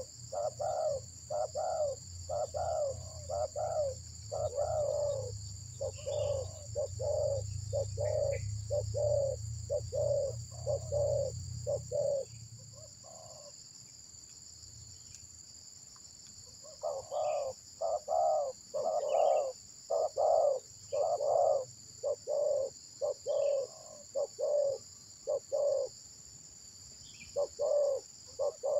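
Spotted dove cooing in a long run of short, low notes, about two a second, with a pause of a few seconds in the middle before it starts again. A steady high insect drone goes on behind.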